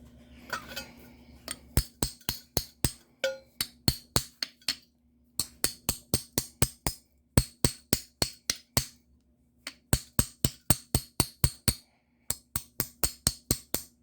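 Hammer striking a pair of seized needle-nose pliers in quick, ringing metal-on-metal taps, about four or five a second, in six short bursts with brief pauses between. The pliers have been soaked in penetrant and are being knocked to free up the stuck joint.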